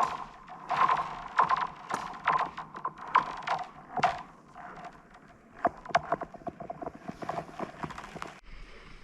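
Nordic skate blades striking and scraping across thin, 45 mm lake ice, several strokes a second. Under the strokes the ice rings with a steady, musical tone. The strokes thin out after about four seconds.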